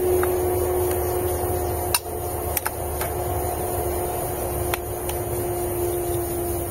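A few short, sharp clinks of utensils against a camp pot or plates as food is served, over a steady hum with a faint held tone.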